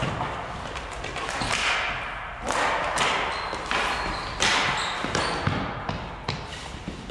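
Ball hockey play in a large gym: several sharp knocks of sticks and the ball on the hard floor and goal, over a steady echoing din of the game.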